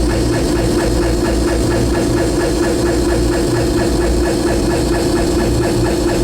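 Harsh noise music played live at high volume: a dense wall of distorted noise over a steady droning tone and deep rumble, with a fast, even pulse running through it.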